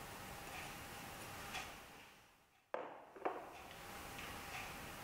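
Faint room tone with a soft tick about once a second. The sound fades almost to silence a little past two seconds in, then comes back suddenly with two sharp knocks about three seconds in.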